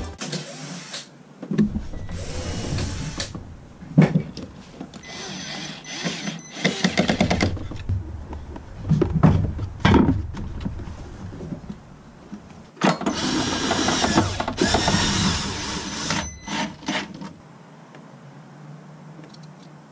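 Hand work on plastic engine-bay trim with a screwdriver: irregular scraping, rustling and knocks that come in several loud stretches and die down near the end.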